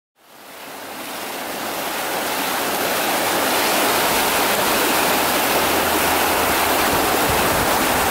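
A steady rushing noise, like running water, that fades in over the first few seconds and then holds level.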